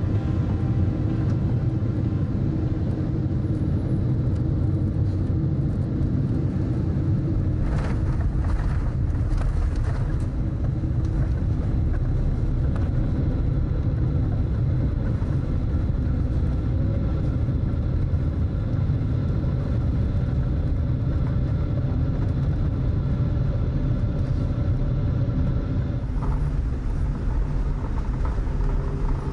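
Boeing 747-8's GE GEnx engines and undercarriage heard inside the cabin as the jet rolls on the ground after landing: a steady low rumble with a faint engine whine. A few brief knocks come about eight to ten seconds in.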